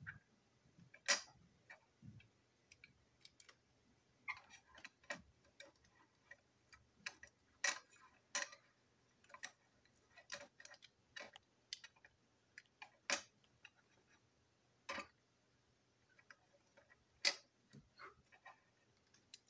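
Small plastic and metal parts of a model train truck clicking and tapping against each other and the tabletop as the truck is handled and put back together: irregular sharp clicks, a dozen or more.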